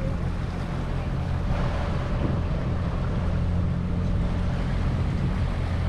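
A yacht's engine running steadily while motoring at trolling speed, a low even hum, with wind and water noise over it.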